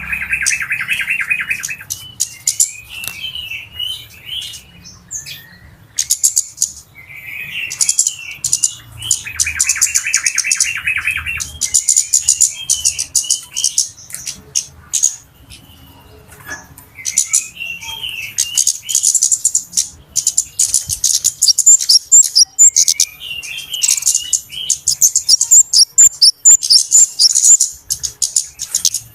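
Flowerpeckers (cabe-cabean) calling noisily: a dense run of rapid, high ticking calls with short chirped phrases. A lower rattling trill comes at the start and again about nine seconds in.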